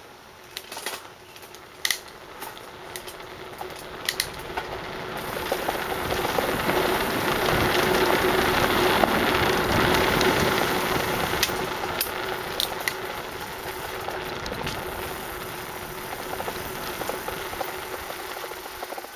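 Bicycle rolling fast along a narrow concrete path: tyre and wind noise builds up to a peak around the middle and then eases off, with scattered sharp clicks and rattles from the bike over bumps.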